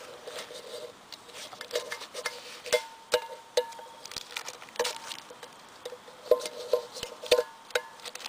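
Knife blade scraping and clicking against an empty metal coffee can while the paper label and glue are stripped off. Many of the sharp scrapes and taps leave the hollow can ringing briefly with short metallic tones.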